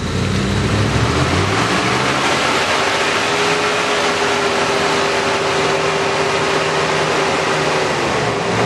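Jeep Grand Cherokee's 5.2-litre V8 engine revving up and held at high, steady revs under heavy load as the vehicle climbs through deep mud and snow; the revs ease off slightly near the end.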